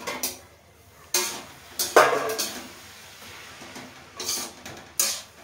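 Metal spatula stirring greens in a metal kadhai, knocking and scraping against the pan in a few sharp clanks; the loudest is about two seconds in.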